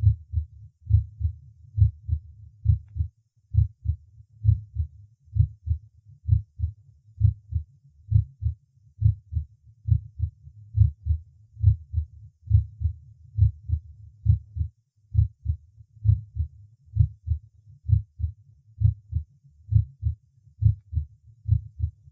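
Normal human heart sounds heard at the Botkin-Erb point, a steady lub-dub with the first and second sounds about equally loud. About 70 beats a minute, in a regular rhythm.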